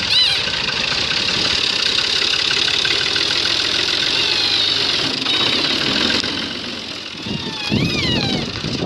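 New Holland 480 tractor's three-cylinder diesel engine running as the tractor drives off; the sound dips for a moment about seven seconds in and picks up again near the end.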